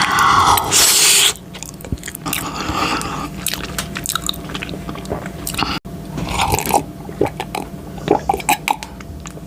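Close-miked eating sounds: a person bites into a sauce-covered Buldak dumpling, loudest in the first second or so, then chews it with many small irregular clicks and smacks.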